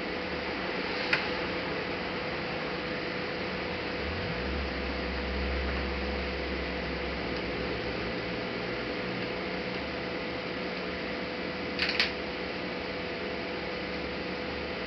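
Small laptop parts and tools being handled during disassembly: one sharp click about a second in and a quick double click near twelve seconds, over a steady hiss with a low hum.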